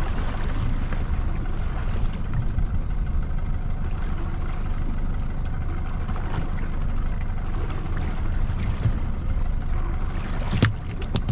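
Fishing boat's engine running steadily with a low hum. A few sharp clicks come near the end.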